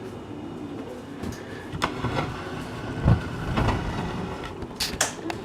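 Several knocks and clatters of objects being handled in a kitchen. The loudest is a low thump about three seconds in, followed by two sharp clinks near the end.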